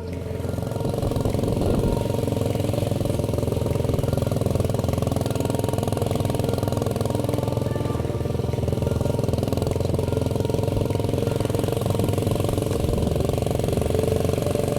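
Steady engine and road rumble of a moving vehicle, level and unbroken.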